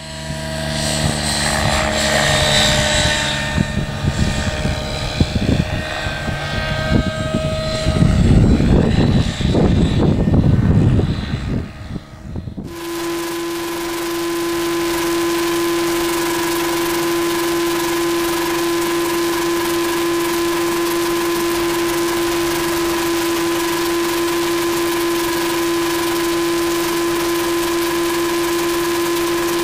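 Align T-REX 700 radio-controlled helicopter in flight. For the first dozen seconds it is heard from the ground, its rotor and drive sound shifting in pitch as it flies about, with a rough low rumble a few seconds before the change. After a sudden change about 13 seconds in it is heard up close from its tail boom as a steady drone with a constant whine.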